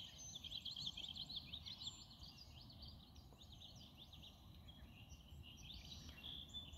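Faint songbirds chirping in quick, high, twittering notes, thickest in the first couple of seconds and again near the end, over faint low background noise.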